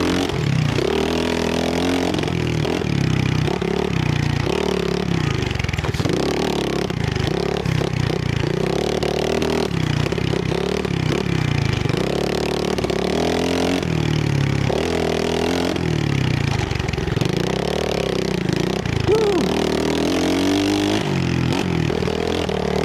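Trailmaster 125 pit bike's small single-cylinder four-stroke engine running under load on a trail ride, its pitch rising and falling over and over as the throttle is opened and rolled off.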